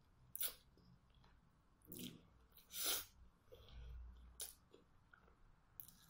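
Quiet close-miked chewing of a pork-and-sticky-rice zongzi: a handful of short, soft wet mouth sounds, the loudest about three seconds in.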